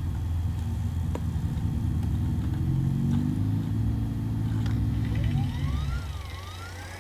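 Dell Latitude D610 laptop running, picked up by a phone lying on its case: a loud low hum that shifts in pitch about three seconds in. About five seconds in a whine starts that glides up and down in pitch, and the hum drops away about a second later.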